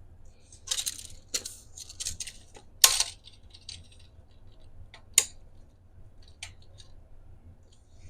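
A run of small, hard clinks and clatters, like small objects being handled or dropped. The sharpest clink comes about three seconds in, another about five seconds in, and a few faint ticks follow.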